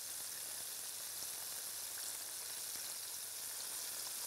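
Flour-coated chicken pieces deep-frying in vegetable oil kept at about 150 °C: a steady sizzling hiss with faint scattered crackles.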